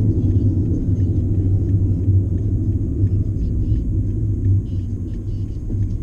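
Car driving on a highway, heard from inside the cabin: a steady low rumble of road and engine noise.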